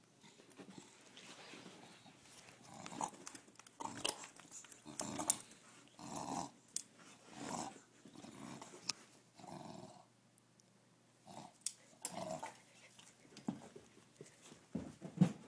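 English bulldog growling in short bursts, roughly one a second, while tugging on a toy, with a brief lull about ten seconds in.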